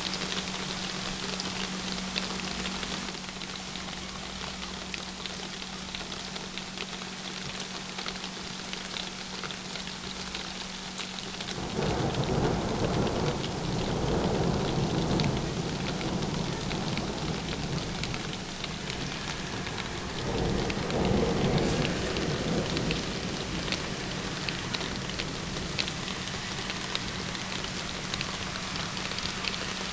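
Steady rain falling, with scattered drops ticking, and two long rolls of thunder: one starting about twelve seconds in, another around twenty seconds in.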